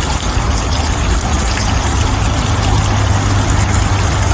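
Water rushing steadily, a constant hiss with a low rumble underneath.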